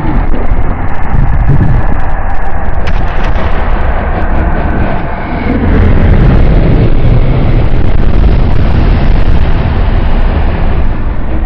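A loud, continuous rumbling and crackling blast, a custom monster sound effect, with a sharp crack about three seconds in.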